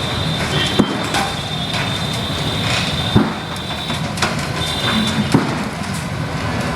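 Hydraulic excavator's diesel engine running steadily, with a high metallic squeal that comes and goes and three sharp knocks spread a couple of seconds apart.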